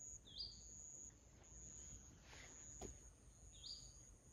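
Faint outdoor evening quiet: a steady, high, thin insect trill, with two short bird chirps, one about half a second in and one near the end.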